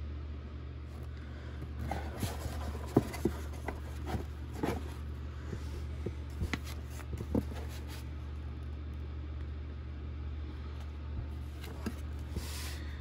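Paper and a comic being handled: a run of rustles and light taps for several seconds, then a short brushing slide near the end, over a steady low hum.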